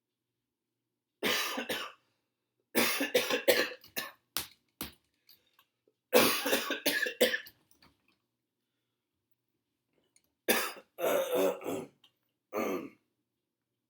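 A man with a chest cold coughing in about five fits of several quick coughs each, with a longer pause in the middle.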